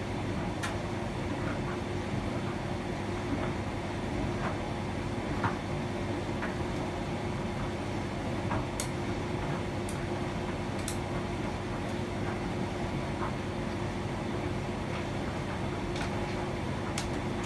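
Hotpoint tumble dryer running steadily with its drum turning, a constant hum with a few sharp clicks scattered through it.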